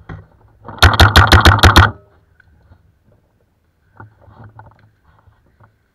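Paintball marker firing a rapid string of about eight shots in just over a second, each a sharp pop. A few faint knocks follow later.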